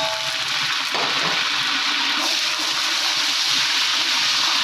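Fresh curry leaves sizzling in hot oil with fried onions and ginger-garlic paste in a large aluminium pot, stirred with a wooden spatula. A loud, steady sizzle that grows a little stronger about two seconds in.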